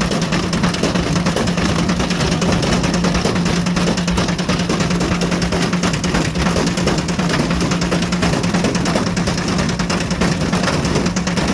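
Ariston Margherita washing machine running with a brick inside: a steady motor hum under a rapid, continuous clatter of the brick banging around in the drum.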